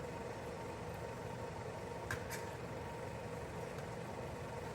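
A steady mechanical hum with a faint constant whine, and two light clicks about two seconds in.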